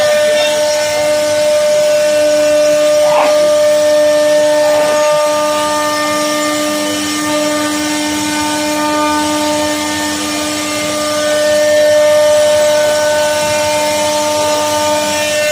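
CNC wood router running, its spindle giving a steady pitched whine over a constant hiss.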